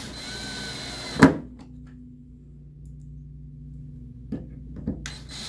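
Cordless drill/driver running to drive a hinge screw back into its press-in plug in an MDF door. It stops about a second in with one sharp click, then runs again near the end.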